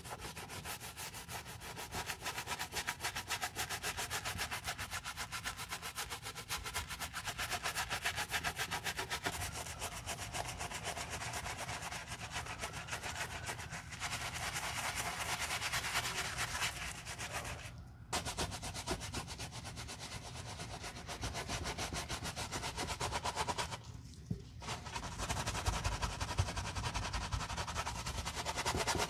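Bristle brush scrubbing a foam-lathered canvas sneaker in fast back-and-forth strokes, with two brief pauses in the second half.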